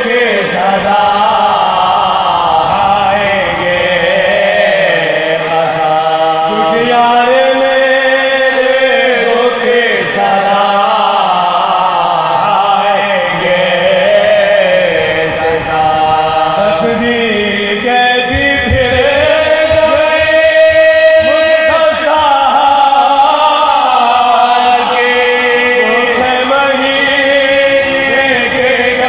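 Male voices chanting soz, an Urdu elegy of mourning for Imam Hussain, in long, held, melodic lines that rise and fall.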